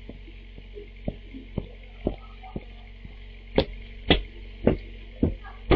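Footsteps approaching, about two a second and growing louder, over the steady hiss and hum of a home security camera's microphone.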